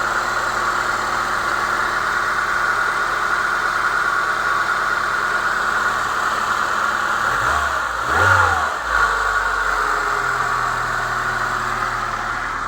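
Chevrolet Niva four-cylinder engine idling steadily without knocking, with one short throttle blip about eight seconds in. The cold-start knock near the first cylinder has stopped since the faulty new Trialli chain tensioner was swapped for the old one, its spring tightened.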